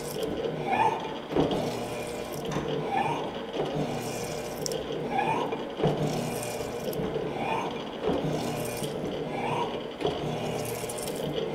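Morey 12-inch vertical shaper running and cutting an internal keyway in steel under power feed. The ram cycles about once every two seconds, each stroke bringing a knock and a short rising scrape from the cutting tool, over the steady hum of the machine.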